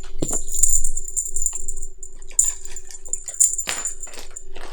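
Metallic jingling in short repeated bursts, with light clicks and rattles: a cat wand toy's attachment being waved and shaken for the cats.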